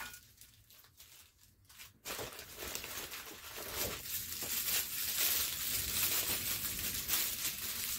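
Plastic packaging crinkling and being torn open by hand, starting about two seconds in and continuing as a dense crackle.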